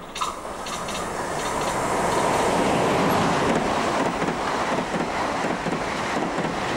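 Passenger train passing at speed over a steel truss railway bridge: wheel and rail rumble that builds over the first few seconds, then holds steady as the carriages go by.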